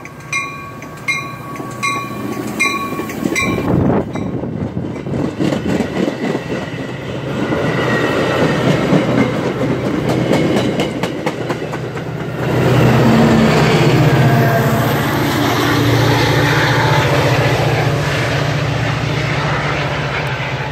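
A bell rings about twice a second for the first few seconds and then stops. A passenger train rolls past with its wheels clacking rapidly over the rail joints, and about twelve seconds in a louder steady low drone joins as the train comes by.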